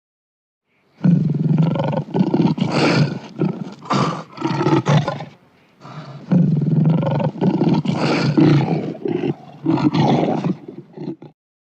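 African lion roaring in two bouts of repeated short roars, the first starting about a second in and the second about six seconds in, with a brief pause between.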